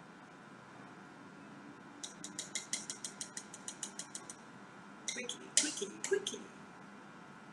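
Kitchen tongs clicking and tapping against the melted-chocolate container as a biscuit is dipped: a quick run of light clicks, about seven a second for two seconds, then a few louder clicks.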